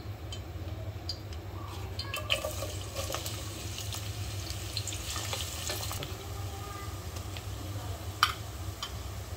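Sliced onions hitting hot oil in a nonstick pot and sizzling for a few seconds, among light knocks of a bowl and a wooden spatula against the pot. A sharp knock comes about eight seconds in.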